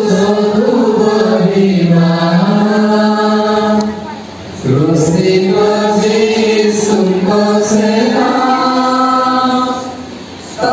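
A group of voices singing a slow, chant-like hymn on one melody line, with long held notes. The singing drops briefly for a breath between phrases about four seconds in and again near the end.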